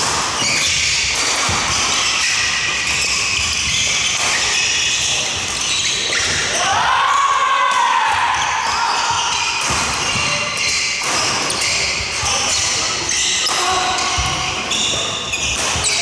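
Doubles badminton rally on an indoor wooden court: rackets striking the shuttlecock and shoes squeaking and stamping, with many short knocks. Players' calls and chatter from other courts echo through the large hall.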